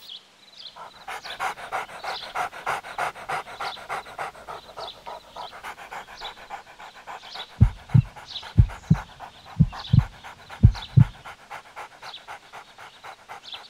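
Fast, even panting, like an out-of-breath animal, on the animation's soundtrack. In the second half, four pairs of deep thumps cut through it.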